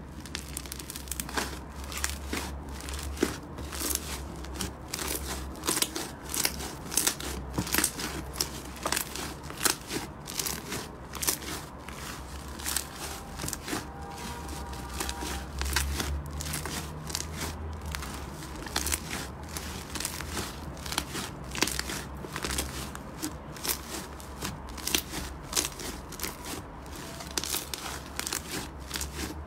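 Slime being squeezed and pressed by hand, giving a constant stream of crisp, irregular crackles and pops, typical of crunchy slime.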